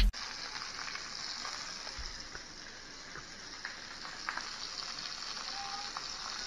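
Sausages sizzling as they brown in a cast-iron skillet: a steady frying hiss with a few small pops of fat.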